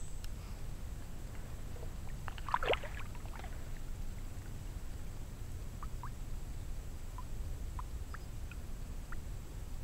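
Quiet ambience from a kayak on a creek: a steady low rumble, a brief cluster of squeaky chirps about two and a half seconds in, and a few faint short chirps later on.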